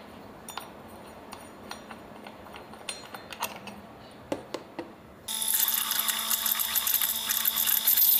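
Light metallic clicks and scrapes as the guard cover is twisted off a Bamix immersion blender's shaft. Then, about five seconds in, the Bamix motor starts and runs steadily with a whine and a strong hiss, its bare drive shaft spinning in a pot of hot water to clean it.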